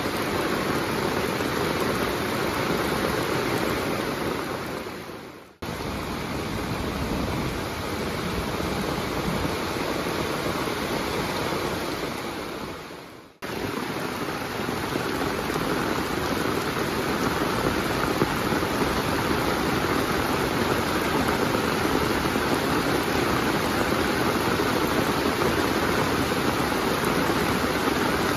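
Heavy monsoon rain pouring down steadily, a dense even hiss of drops on wet ground, puddles and tarmac. It fades away and comes straight back twice, about five seconds in and again near the middle.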